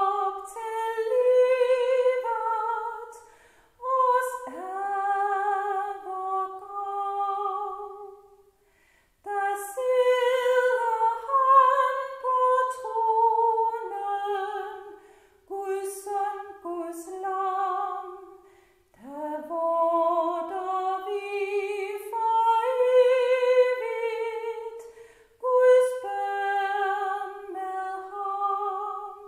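A woman singing a hymn solo and unaccompanied, in long phrases with a wide vibrato, pausing briefly for breath between lines.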